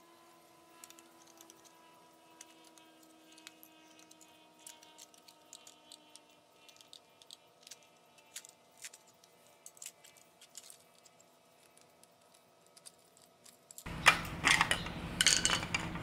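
Small irregular clicks and scrapes of a screwdriver prying at the plastic impeller fan of a Hoover Elite 700 vacuum motor, working it loose from the motor shaft. Near the end a much louder passage begins.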